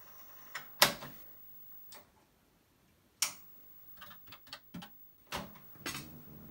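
Mechanical clicks from a Commodore PET and its datasette: two sharp single clicks, a quick run of light key taps about four seconds in as LOAD is typed, then two heavier clacks near the end as the datasette's play key is pressed down.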